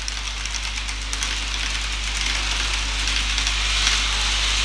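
N-gauge model trains running on the layout: a steady rolling hiss with fine, rapid clicking of wheels on the track over a low motor hum, slowly growing a little louder.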